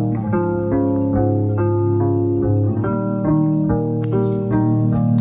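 Background music: plucked guitar-like notes over a steady bass line, with an even beat.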